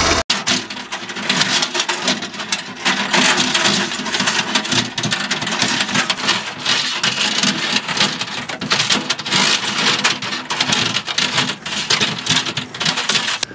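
Linked machine-gun ammunition belt being handled and pulled from its can, with the metal links and cartridges clinking and rattling in a dense, continuous crackle. A faint low hum runs underneath.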